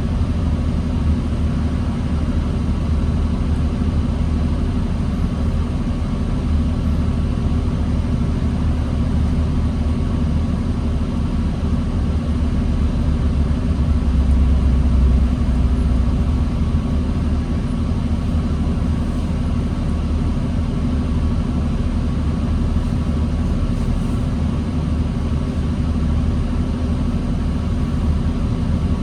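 2009 New Flyer D40LFR diesel transit bus heard from inside, its engine and drivetrain running with a steady low drone in slow traffic. The sound swells briefly about halfway through.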